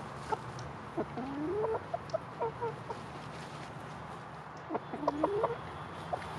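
Bantam chickens clucking softly: a cluster of short calls with one drawn-out rising note about a second in, then a second quick run of clucks near the five-second mark.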